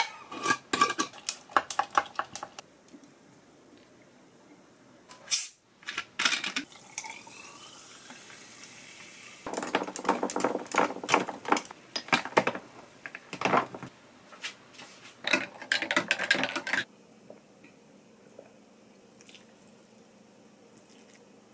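Drink being made in a stemmed glass: clinks of ice and a glass jar being handled at the start, a short loud burst about five seconds in, then a spoon stirring ice in the glass with rapid clinking for about seven seconds. It ends in faint room tone for the last few seconds.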